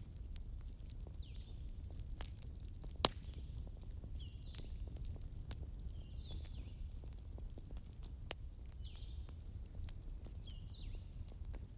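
Wood fire crackling in a fireplace over a steady low rumble, with scattered small ticks and two sharper pops, about three seconds and eight seconds in. A short high chirp repeats every second or two throughout.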